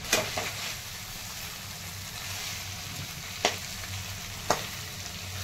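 Stuffed small brinjals sizzling steadily in oil and masala in a metal kadhai, with a metal spatula clinking against the pan four times as it stirs them: twice right at the start, once about three and a half seconds in, and once about four and a half seconds in.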